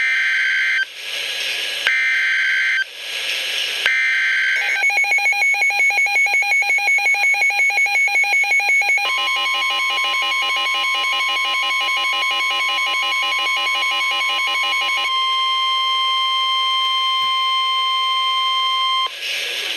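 Weather radio Emergency Alert System alert: three one-second bursts of the SAME digital header, a harsh warbling screech, then about four seconds of fast pulsing beeps, then the long steady 1050 Hz NWS warning alarm tone. Other beeping tones lie over the alarm tone for its first six seconds. The sequence announces a severe thunderstorm warning.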